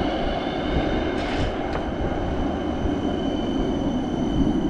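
Tram running on its rails: a steady low rumble with a steady high whine over it, and a brief hiss and a sharp click a little over a second in.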